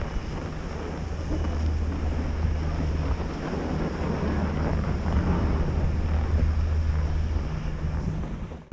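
Wind buffeting the microphone of a helmet-mounted action camera, a steady low rumble that cuts out abruptly near the end.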